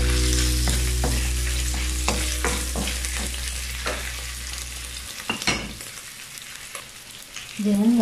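Beef slices and garlic sizzling in a nonstick frying pan while a wooden spatula stirs them, with scattered clicks of the spatula against the pan. The sizzle gradually grows quieter.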